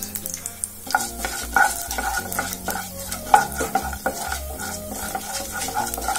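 Sesame oil frying urad dal and mustard seeds in a nonstick pan, sizzling with frequent short crackles, while a wooden spatula stirs the tempering.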